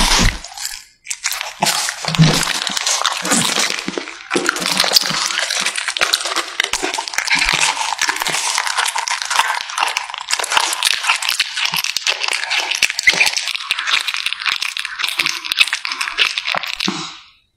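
Tabby cat chewing and tearing at a large chunk of raw beef, close-up: a dense run of crunching, tearing and clicking mouth sounds, with a brief pause about a second in.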